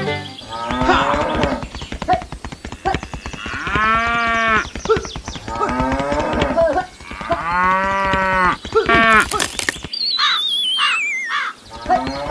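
Cows mooing several times in long, drawn-out calls, followed near the end by a wavering whistle that falls in pitch.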